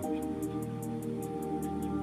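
Background music: soft held chords that change right at the start, over a quick, steady high ticking beat.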